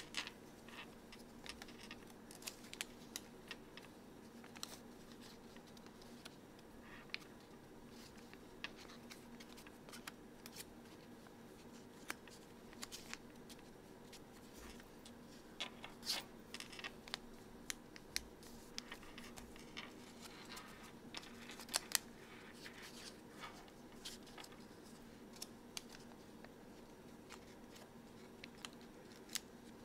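Origami paper being folded and creased by hand on a tabletop: scattered short, crisp paper crackles and taps, over a faint steady hum.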